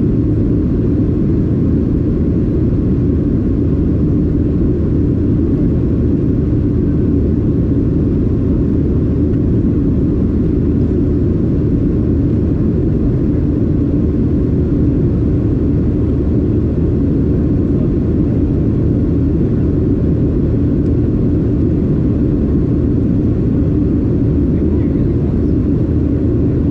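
Steady cabin rumble of a Boeing 737-800 airliner in flight: its CFM56-7B engines and the airflow heard inside the cabin, a loud even low drone with no change.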